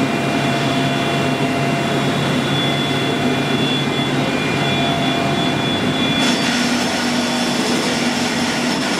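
Union CBFT 105 CNC table-type boring and milling machine running, with a steady mechanical hum and several steady whining tones. About six seconds in, a higher whine and a hiss join in.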